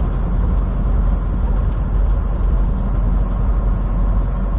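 Semi truck on the road, heard from the cab: a steady low drone of engine and road noise while driving.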